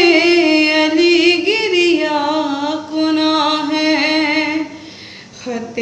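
A young woman's unaccompanied voice chanting a nauha, a Muharram lament, drawing out one long ornamented note. There is a short break near the end before the voice takes up the next line.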